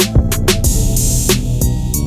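Background music with a drum-machine beat of repeated kick and snare hits over a sustained bass line.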